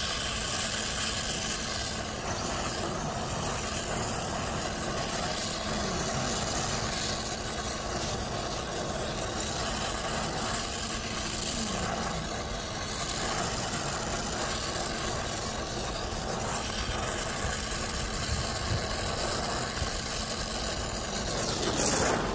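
A machine running steadily with an even hum, and a brief louder rustle just before the end.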